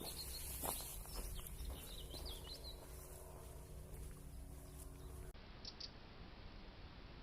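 Small birds chirping faintly over a steady low hum. About five seconds in, the sound cuts to a quieter, hissy trail camera recording with a couple of faint ticks.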